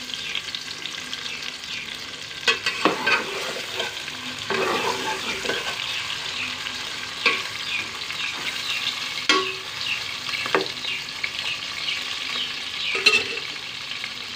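Bitter gourd pieces sizzling as they fry in ghee in an aluminium pot, with a steady crackle. A spoon stirs them, knocking and scraping against the pot a handful of times.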